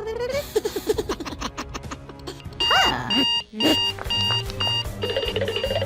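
Cartoon soundtrack: music with an electronic alarm beeping, a high tone pulsing on and off about twice a second, starting about halfway through. A short cartoon voice exclamation sounds near the start.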